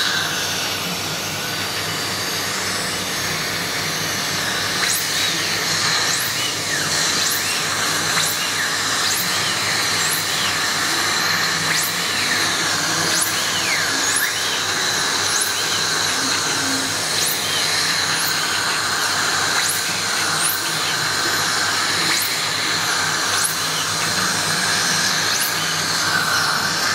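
Dental drill running in a patient's mouth with the suction hissing: a steady high whine over continuous hiss, with many brief high rising chirps throughout.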